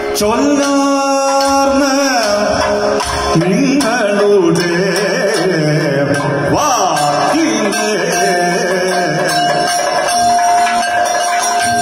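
Kathakali music: a male singer sings a padam over chenda and maddalam drums. Just after the start he holds one long note, then from about three seconds in the melody winds up and down, while sharp drum and metallic strokes keep the beat.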